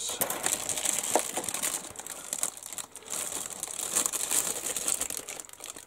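A thin plastic bag crinkling and rustling as plastic model-kit sprues are handled, with many small crackles throughout.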